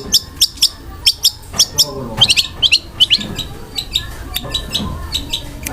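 Long-tailed shrike (cendet) singing a fast string of sharp, high chirps, about three to four a second, with some quicker clusters in the middle.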